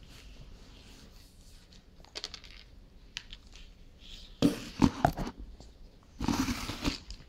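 Handling noise close to the microphone: several sharp knocks about four and a half seconds in, then a second or so of loud rustling near the end as a snack-puffs canister is moved up against the camera.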